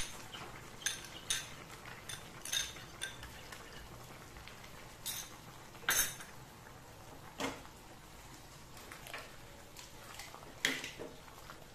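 A spatula knocking and scraping against a wok as vegetable capcay is stirred, about ten separate, irregular clinks.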